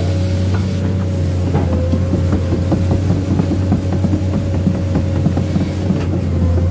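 Komatsu PC210 excavator's diesel engine running steadily as a low drone with a steady higher whine, over many irregular clanks and knocks from the machine travelling on its tracks.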